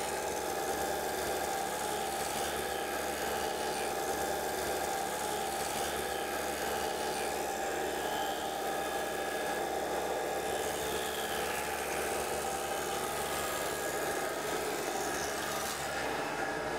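Wood thickness planer running steadily as boards are fed through it and planed down to exact thickness.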